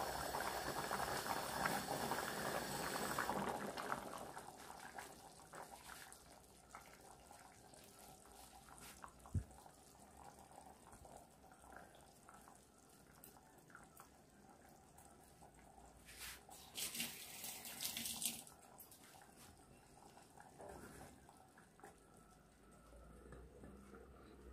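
Curry boiling hard in an aluminium saucepan, bubbling loudly for the first few seconds, then settling to a quieter simmer with small pops. A single knock comes about nine seconds in, and a brief hiss comes around seventeen seconds.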